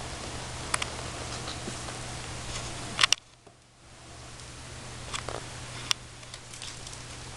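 Light scattered clicks and taps of a kitten's paws and claws on a glass TV-stand base, the loudest cluster about three seconds in, over a steady hiss and low hum.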